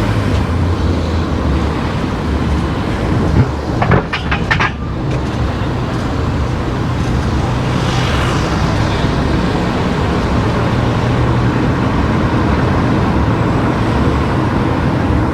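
Steady road and engine noise of a car driving, with a low hum. A short cluster of sharp knocks or clicks comes about four to five seconds in.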